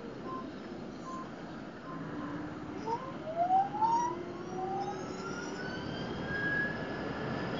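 Ather 450 Apex electric scooter's motor whine, its pitch rising steadily as the scooter accelerates from about three seconds in, over wind and road noise.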